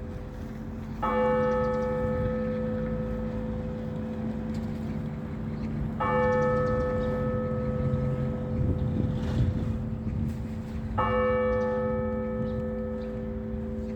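Orthodox church bell struck three times, about five seconds apart, each stroke ringing on and humming until the next: a slow, measured ringing calling the faithful to the service.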